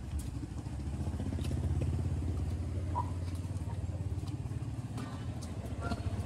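A motorcycle engine running steadily, growing louder over the first couple of seconds and then holding, with a few faint sharp taps over it.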